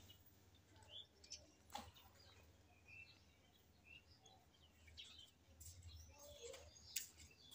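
Near silence: faint room tone with a few faint short chirps and a couple of soft clicks.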